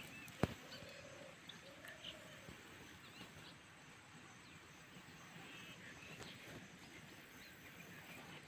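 Quiet outdoor ambience with faint, scattered bird chirps, and a single sharp knock about half a second in.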